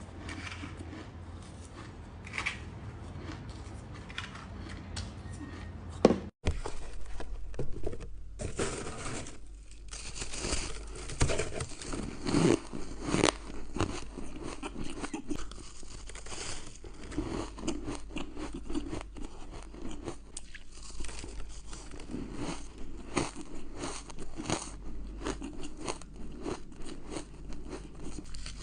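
A person biting and chewing ice close to the microphone, with crisp, crunchy bites. About six seconds in there is a loud click and a moment of silence, after which the crunching is denser and louder.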